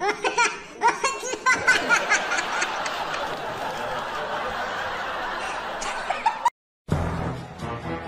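Laughter, then a steady dense wash of noise, both cutting off suddenly about six and a half seconds in. After a brief silent gap, music with a deep beat begins.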